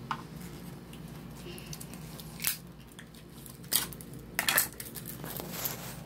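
Small plastic toy pieces and a plastic wrapper being handled on a hard tabletop: a few separate clicks and rustles, the loudest cluster a little past the middle.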